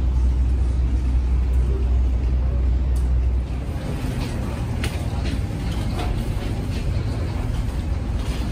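Airport ambience: a loud, steady low rumble that stops suddenly about three and a half seconds in. It gives way to the lighter noise of a terminal, with scattered clicks and footsteps and faint voices.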